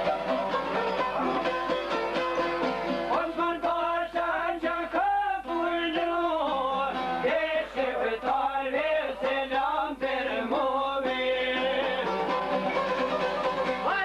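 Albanian folk song played on çifteli, long-necked plucked lutes, with a man's singing voice coming in about three seconds in over the plucked accompaniment.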